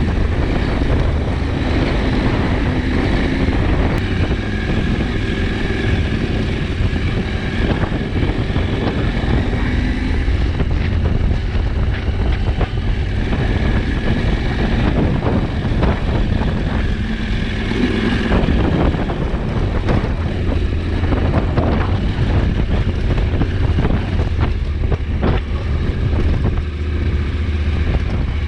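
KTM 790 Adventure's parallel-twin engine running as the motorcycle is ridden, its pitch rising and falling with the revs, with wind noise on the microphone.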